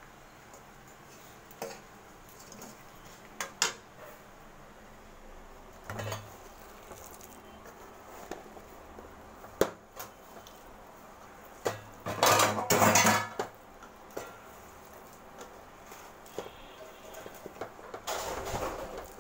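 Metal kitchen pot and utensils clinking and knocking in scattered single knocks, with a louder clattering rattle lasting about a second past the middle and another near the end.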